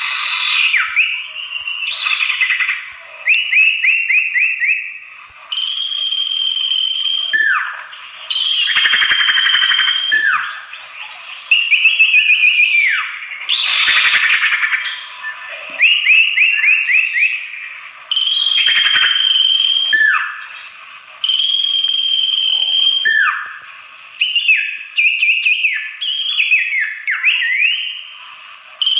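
Common iora (sirtu) calls played as a bird-luring track, meant to draw in wild ioras. Phrases repeat every one to two seconds: long steady whistles, quick runs of chirps, notes sliding downward, and now and then a harsh scolding chatter.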